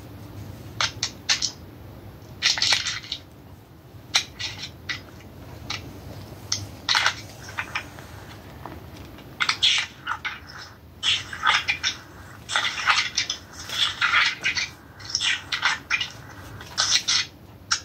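Paper pages being turned and handled: irregular bursts of rustling and crinkling with a few sharp clicks, coming thicker and longer in the second half.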